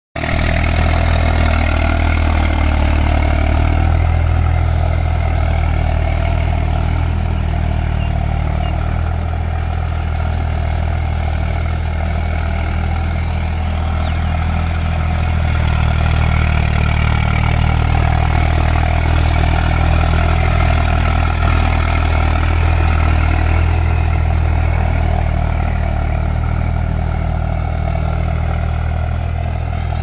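Eicher 380 tractor's diesel engine running steadily under load while ploughing: a continuous low drone with little change in speed.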